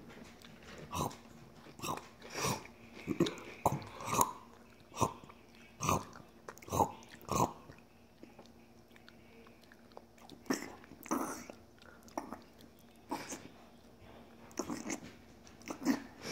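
Crunchy cereal being chewed, a string of short separate crunches about once a second, with a short pause about halfway through.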